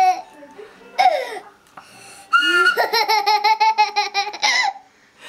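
A toddler laughing into a small toy recorder, so that the recorder sounds a held high note that pulses with each burst of laughter. There is a short burst about a second in and a longer pulsing run from about two and a half to four and a half seconds in.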